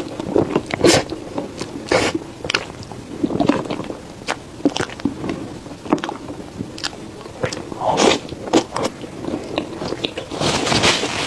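Close-miked chewing and biting of cake, with wet mouth clicks and lip smacks coming irregularly, and a denser run of them near the end.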